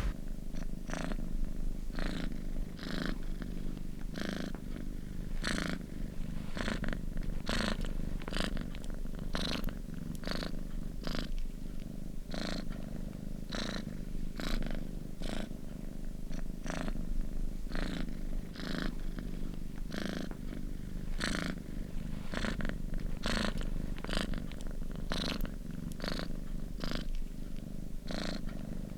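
Domestic cat purring steadily close to the microphone, the purr pulsing in an even rhythm of about two beats a second.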